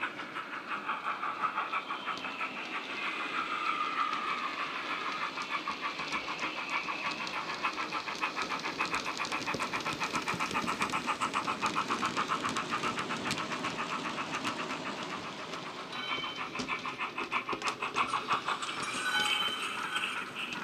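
Hornby Large Prairie model's DCC sound decoder playing steam-engine chuffs through a small sugarcube speaker under the chimney: a quick, even chuff rhythm as the locomotive runs past with its coaches. A few short high tones sound near the end.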